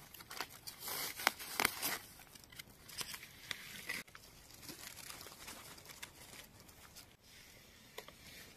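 Dry leaf litter rustling and crinkling as it is brushed aside by hand to get at mushrooms. The crackling is densest in the first two seconds, then thins to fainter crackles and ticks.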